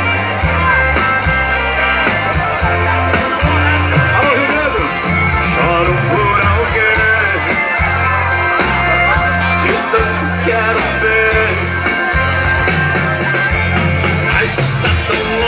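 Live band music: an upbeat song with a steady pulsing bass line under a wavering lead melody.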